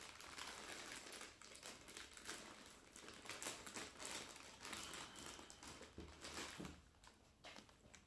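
A plastic bag full of cardboard jigsaw puzzle pieces crinkling faintly as it is pulled open and handled, with a dense, irregular crackle that thins out near the end.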